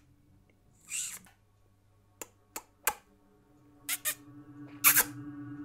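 A few sharp clicks and short hissing bursts over near-quiet, then a low steady hum comes in past the middle, with a couple of louder bursts near the end.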